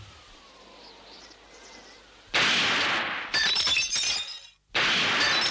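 Cartoon sound effect of glass bottles being shot and shattering: three loud bursts starting about two seconds in, the second and third full of tinkling glass shards.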